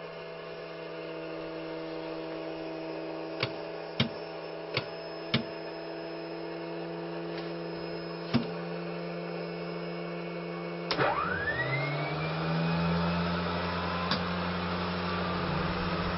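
Mi-2 helicopter's onboard electrical equipment humming steadily on 24 V power, with several switch clicks. About 11 seconds in, another click and an electric unit spins up with a rising whine, settling into a louder steady hum.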